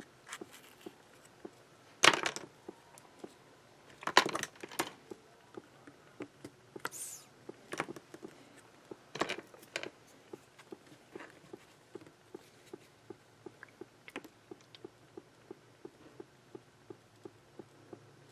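Zippo lighter being handled: several sharp metallic clacks from the lid and the flint wheel, with a short rasping burst about seven seconds in. A faint steady ticking about twice a second runs underneath.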